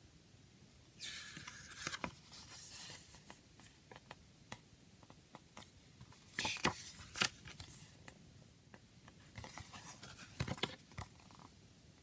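Paper CD booklet being handled and opened, its pages sliding and rustling in three short spells, about a second in, around six and a half seconds and near ten seconds, with small clicks.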